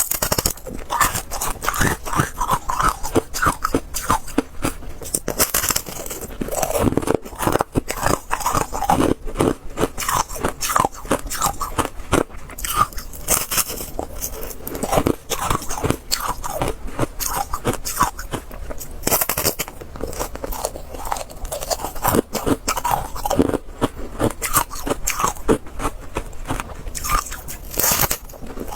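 Hard ice being bitten and chewed close to the microphone: a continuous series of sharp crunches and crackles as the cubes crack and grind between the teeth.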